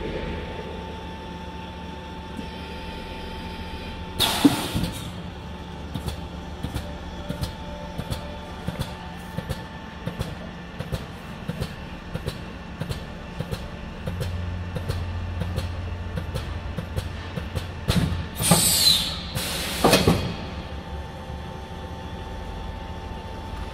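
Skin-packaging tray sealer running a vacuum sealing cycle: a steady vacuum pump hum, a loud burst of air hiss about four seconds in, then regular clicking about twice a second for some twelve seconds. Near the end two loud pneumatic hisses, one with a sliding whistle.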